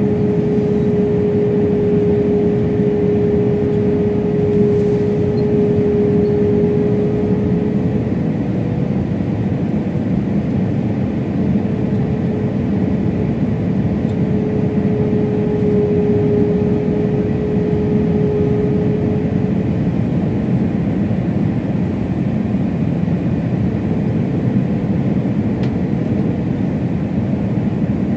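Steady jet engine and airflow noise heard inside the cabin of an Airbus A321 airliner, with a steady hum that fades out about twenty seconds in.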